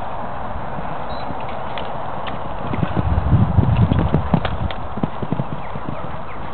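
A ridden horse's hoofbeats on the arena surface, loudest about three to four seconds in as it passes close by, over a steady hiss.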